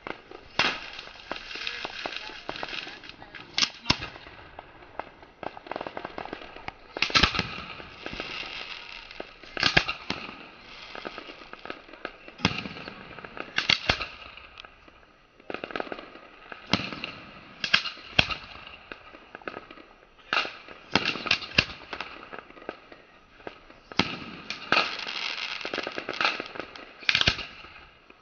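Aerial fireworks going off in quick succession: a sharp bang every second or two, with crackling and hiss between the shots.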